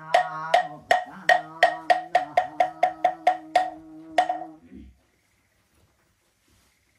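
Wooden moktak (Buddhist wooden fish) struck about fifteen times, the knocks quickening and then slowing, under a monk's chanting voice held on a steady note. Both stop together about five seconds in.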